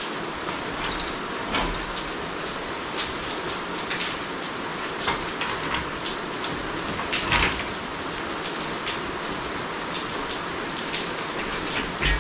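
A steady hiss like rain runs throughout, with scattered light knocks and clanks as the engine hangs from the crane and is worked around. The strongest knock comes about seven seconds in, with another at the very end.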